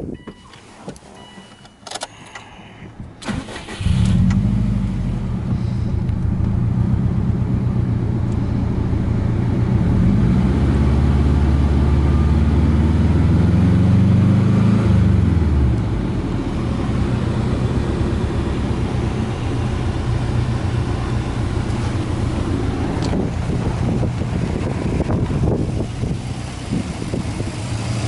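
Subaru Impreza WRX STi's turbocharged EJ20 flat-four, fitted with an aftermarket turbo, starts about four seconds in and settles to idle. Near the middle it is revved slowly up to about 3,000 rpm, held there, then drops quickly back to idle.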